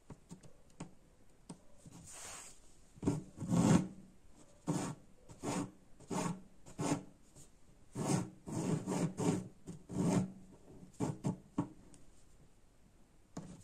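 Embroidery thread being drawn through fabric stretched taut in an embroidery hoop: a series of short rasping pulls, one per stitch, as buttonhole stitches are worked around a petal's edge.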